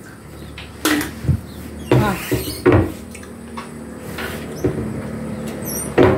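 Kitchen clatter: a handful of sharp knocks and clanks at irregular intervals as cookware and kitchen things are handled and set down.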